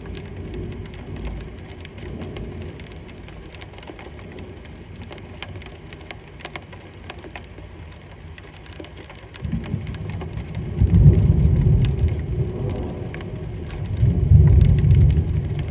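Steady rain falling, with many small drip ticks. About nine seconds in, a deep thunder rumble rolls in and swells twice, loudest near the end.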